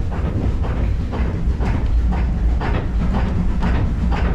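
Steam train running with a heavy low rumble and a regular beat about twice a second.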